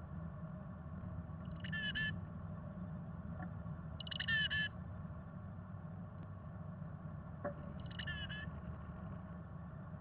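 Black-capped chickadee calling: three short calls about two to three seconds apart, over a steady low hum.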